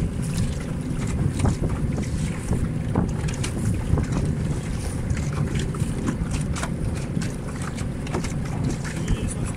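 Wind buffeting the microphone, with choppy water splashing and lapping irregularly against a small boat's hull.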